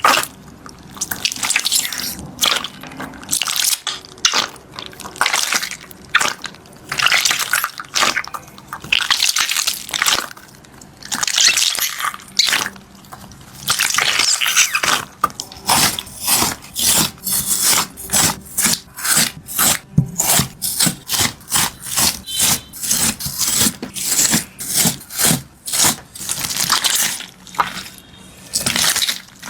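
Liquid sounds in repeated wet bursts: several longer pouring swishes, and a run of short, quick spurts of about two a second through the middle.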